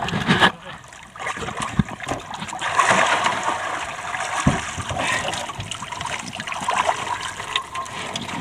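Sea water splashing and trickling around a small wooden fishing boat, with a couple of low knocks.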